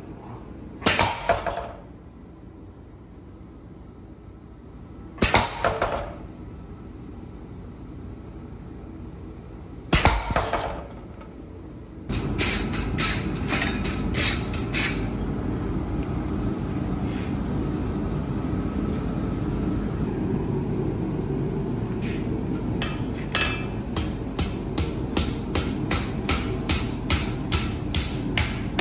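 Forging hot steel. A power hammer strikes a hand-held top tool in three short bursts of blows. After a steady low rush comes in, a wire brush scrubs scale off the glowing bar with quick scraping strikes. The last few seconds hold a hand hammer striking hot steel on an anvil in even blows, about two to three a second.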